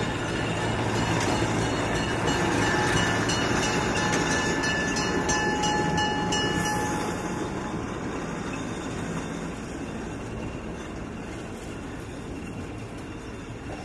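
A passenger train led by an ALCO S4 diesel locomotive rolls by. The engine drones steadily and the wheels click over rail joints, with a thin wheel squeal in the middle. The sound peaks a few seconds in and then fades as the train moves away.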